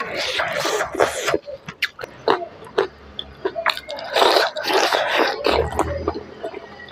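A person eating smoked chicken with rice and perilla seeds by hand: chewing and lip-smacking with many short clicks, and two longer noisy stretches of mouth sounds, one at the start and one about four seconds in as a piece of chicken is bitten into.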